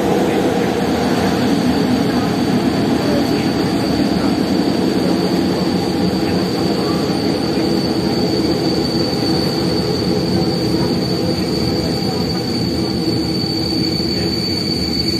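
Passenger train running along the line, heard from on board: a steady rumble of wheels on rails with a high steady whine throughout, which grows stronger near the end.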